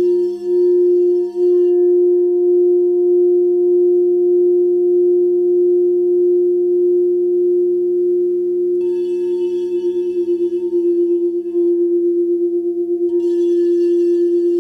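Handheld frosted quartz crystal singing bowl sung by circling a wand around its rim: one steady, pure ringing tone with fainter overtones. The wand comes off the rim about two seconds in and the tone rings on by itself. The wand goes back on about nine seconds in and again near the end, bringing back a shimmer of high overtones.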